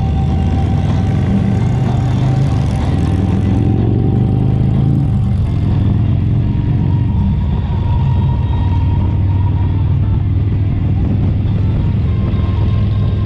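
Motorcycle running on the road at riding speed: a steady low engine rumble, with a brief shift in pitch about four to five seconds in.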